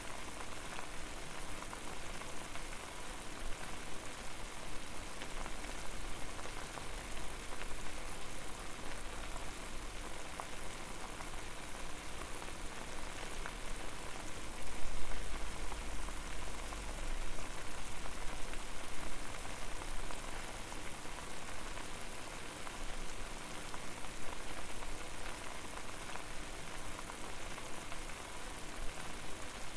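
Water at a rolling boil: a dense, steady crackle of bursting bubbles. A low rumble swells for a couple of seconds about halfway through.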